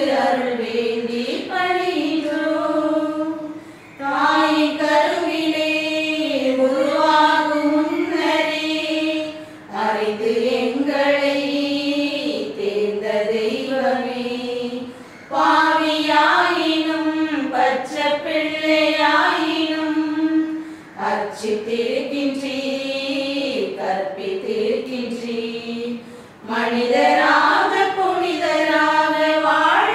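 A choir singing a hymn in sung phrases of about five seconds, each followed by a short breath pause.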